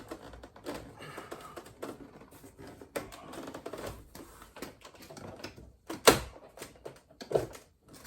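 Plastic door trim panel being pried off a car's rear door: a run of irregular clicks and rattles, with one loud sharp snap about six seconds in and a smaller one a second or so later, as the panel's retaining clips let go.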